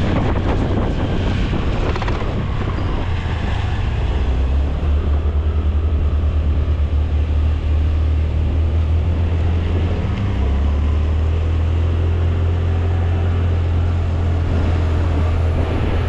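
Honda Dio scooter running on the road with wind buffeting the microphone: a steady low drone and rushing noise that shifts a little in level about four and ten seconds in.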